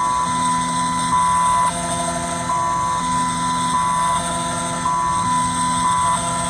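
Desktop CNC milling machine running through a cutting pass on a phone IC: a steady machine whine over a low hum, both switching back and forth between two close pitches about every second.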